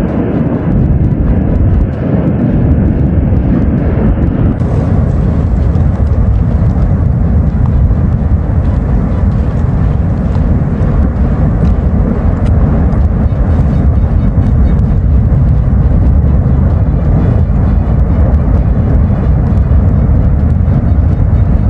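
Kīlauea lava fountain erupting: a loud, steady, deep rushing rumble with no distinct beats, growing a little brighter about four to five seconds in.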